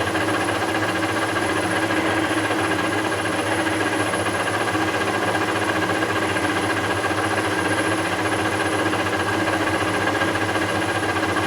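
Webb WL435 17x40 gap lathe running steadily at 710 RPM with a slow power feed, taking a light face cut. It is a steady machine drone with a few constant tones and no change in level.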